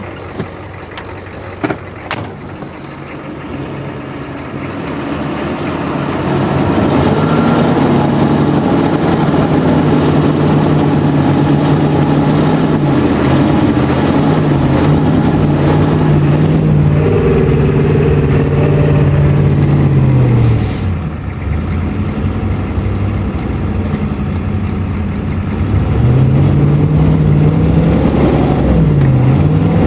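Ford E350 van's diesel engine running after sitting 14 months, its speed climbing over the first several seconds and holding as it is pushed to drive the van, falling back about twenty seconds in, then rising again near the end. The owner judges the engine worn out, with heavy blow-by.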